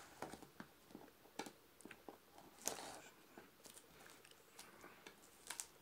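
Faint, scattered scratches and crinkles as a utility knife cuts the cellophane shrink wrap on a small paper box and the wrapped box is handled.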